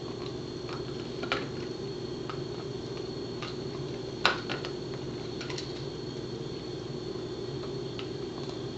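Pembroke Welsh Corgi gnawing a hard cheese chew, with scattered sharp clicks of her teeth on the stick and the sharpest click about four seconds in, over a steady low hum.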